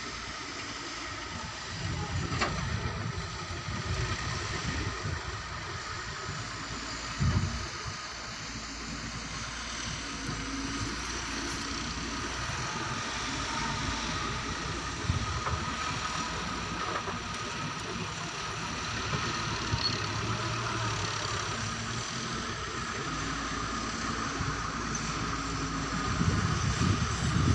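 Excavator's diesel engine running, its low note rising and falling with the work, over a steady high whine. There is a brief heavier knock about seven seconds in.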